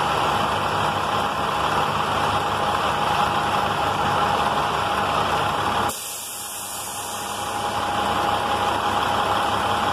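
International truck's diesel engine idling steadily with the air-conditioning compressor running during an A/C pressure check, a steady high tone over the engine. The sound drops suddenly about six seconds in and comes back up over the next two seconds.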